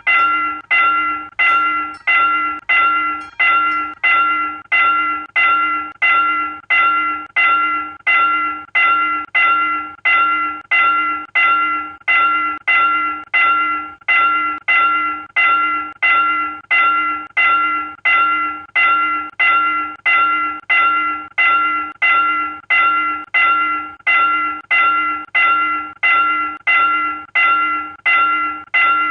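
South Korean railroad crossing warning bell ringing steadily, about three strikes every two seconds, each ding decaying quickly before the next: the signal that a train is approaching and the crossing is closed.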